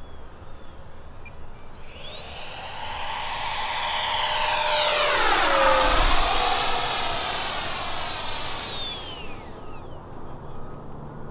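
Freewing F-22 Raptor RC jet's 90mm electric ducted fan whining through a low, fast pass. It swells over a few seconds, drops in pitch as it goes by about five or six seconds in, then fades away.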